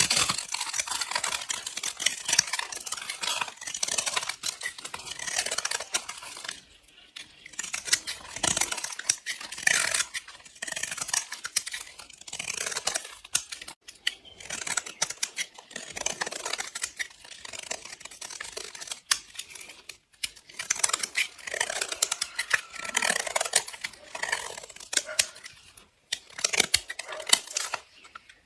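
Blade slicing through bars of soap: dense crisp crackling and scraping in runs of a few seconds, each stroke a stream of fine clicks, with short pauses between cuts.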